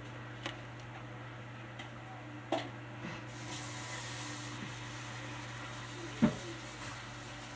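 Kitchen room tone: a steady low hum with a few short knocks and clatters, the loudest about six seconds in.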